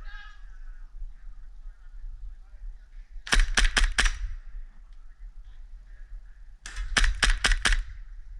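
Airsoft gun firing two quick strings of shots, about five and then six sharp cracks each, a few seconds apart.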